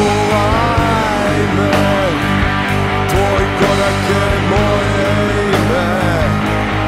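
Live alternative rock band playing an instrumental passage: electric guitars, bass and drums, with a melody line whose notes bend up and down over a steady low bed.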